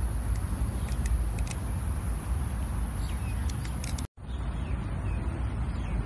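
Rebola V2 balisong being flipped, its handles giving light, sharp clicks several times, over a steady low rumble of distant traffic and a thin, steady high-pitched whine. The sound drops out for an instant about four seconds in.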